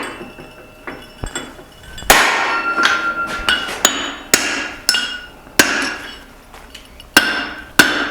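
Hand hammer blows on a steel drift set in the eye of a forged hammer head, truing the eye straight. After a couple of light taps, about ten sharp metallic strikes come at an uneven pace starting about two seconds in, each leaving a short ring.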